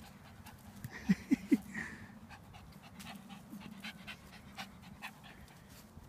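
A Staffordshire bull terrier puppy and a Shih tzu playing tug over a lead, with dog panting and three short, sharp yelps close together about a second in.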